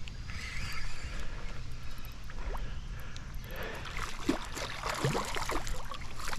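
Water sloshing and splashing, busier and more broken from about halfway through.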